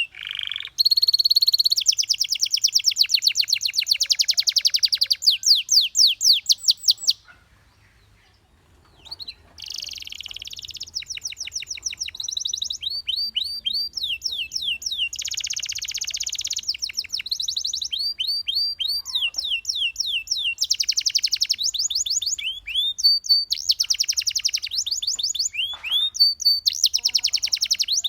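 Domestic canary singing: fast trills of high, rapidly repeated sweeping notes in runs of a few seconds, with a pause of about two seconds near the first third.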